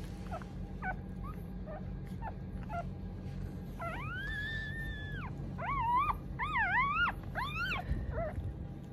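Newborn mameshiba puppy squeaking and crying: a few short high squeaks, then about four seconds in one long held cry, followed by several quick wavering cries.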